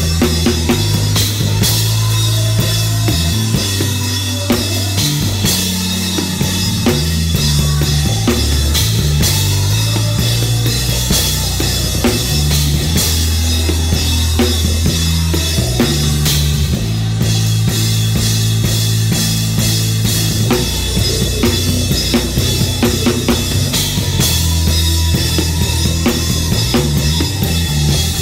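Live worship band music heard from beside the drum kit: drums and cymbals played hard and prominently over sustained low bass notes.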